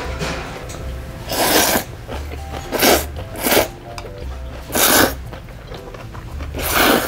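A person slurping noodles, five loud slurps a second or so apart, over light background music.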